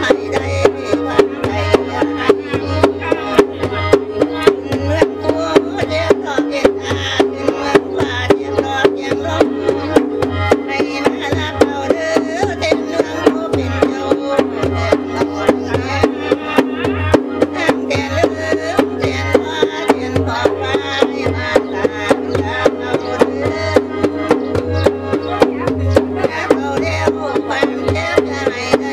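Isan ceremonial music for a Ram Sa-eng ritual: a khaen mouth organ plays a sustained, drone-filled melody over steady hand-drum beats, about two to three a second.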